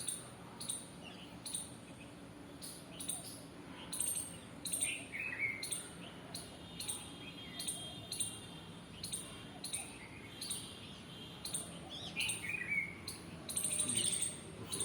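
Birds chirping in the background: many short, sharp high chirps repeating throughout, with a few falling calls, over a low steady background noise.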